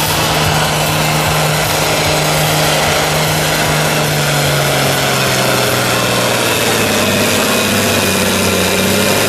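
John Deere 4430's turbocharged six-cylinder diesel working hard under full load against a pulling sled, its engine note sinking slowly and steadily as the sled's weight pulls the engine down.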